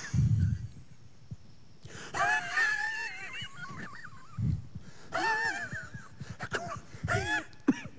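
A person's high, wavering wail, comic and moaning, heard in three bursts starting about two seconds in, with a short low grunt at the very start.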